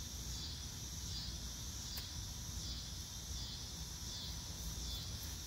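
Outdoor insect chorus: a steady high buzzing that swells and fades every second or so, over a low steady rumble.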